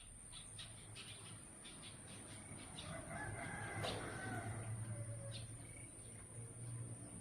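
A rooster crowing once, a long call in the middle, rising and then falling. Scattered small clicks and a steady high-pitched whine run underneath.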